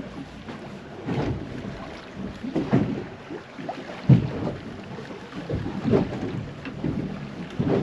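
Waves slapping irregularly against the side of a small boat's hull, with wind on the microphone.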